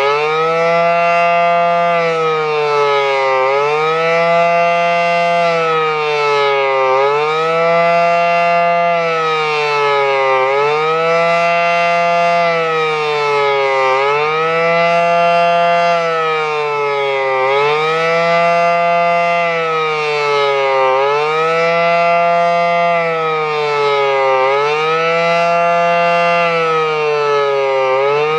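Federal Signal SD-10 outdoor warning siren sounding a fast wail: a loud, continuous siren tone whose pitch sags and quickly climbs back up about every three and a half seconds.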